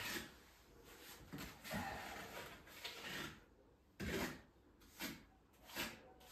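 Plastering trowel scraping wet plaster onto a wall in short strokes, denser in the first three seconds, then four separate strokes about once a second.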